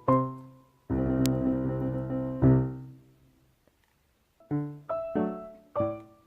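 Background piano music: a few single notes, a held chord that fades out around three seconds in, a short pause, then a run of short notes.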